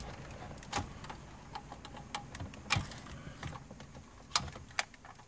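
Irregular light clicks and knocks from hand tools and small hard parts being handled, a dozen or so scattered through, the sharpest about two-thirds of the way in.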